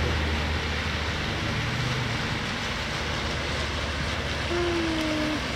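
A car driving slowly through floodwater on a road: a low engine hum under a steady wash of water noise.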